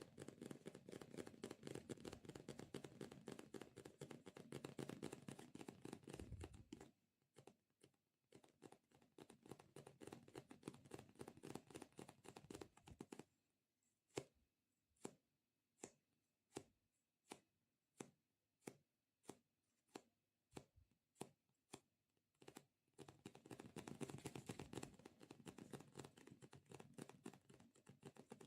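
Close-miked sticky ASMR sounds: fast, faint crackling taps, thinning about seven seconds in to single sharp sticky pops about twice a second, then fast crackling again near the end.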